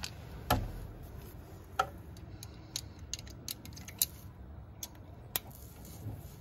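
Ratchet and socket clicking and clinking in scattered strokes as the torque-to-yield transmission pan bolts are turned a further 180 degrees, a few clicks coming in a quick run partway through.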